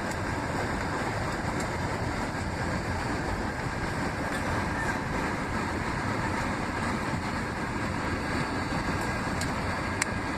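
Steady roar of an airliner's engines and airflow heard inside the passenger cabin, even and unchanging.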